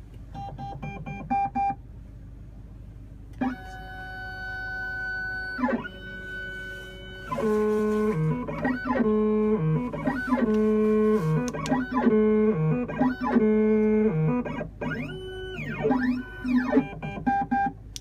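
Silca Futura key machine's stepper motors whining as it decodes a Kwikset KW1 key: a string of steady pitched tones that jump from one pitch to another, with quick rising-and-falling glides near the end.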